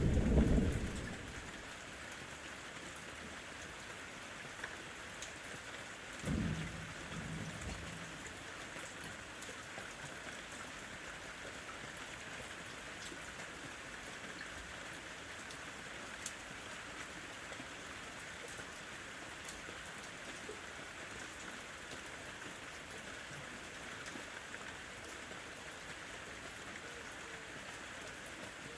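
Steady rain on a window, an even hiss, as the tail of a loud thunder rumble dies away in the first second. About six seconds in, a shorter, softer low rumble of thunder comes and goes.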